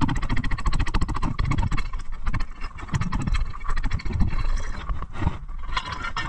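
Footsteps crunching over pond ice, with a long metal ice bar scraping and knocking against the frozen surface in a dense, irregular crackle.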